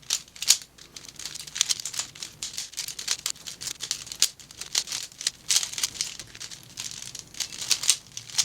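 Speedcube being turned fast one-handed: a quick, irregular clatter of plastic layers snapping through turns.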